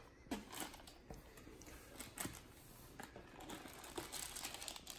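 Faint crinkling of a clear plastic bag and light rustling of a cardboard box as a bicycle crankset is handled inside it, with a few short clicks and taps.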